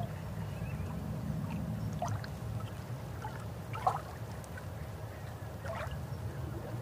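A few light clicks and rattles of small plastic model-kit parts being handled on a wooden table, the sharpest about four seconds in, over a steady low background hum.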